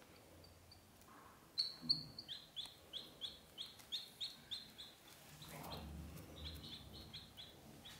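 Ducklings peeping: a steady series of short, high peeps, about three a second, starting about a second and a half in and running on.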